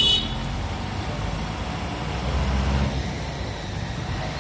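Eicher Terra 25 tipper truck's diesel engine running as it drives past at low speed, louder for a moment about halfway through. A short horn toot sounds right at the start.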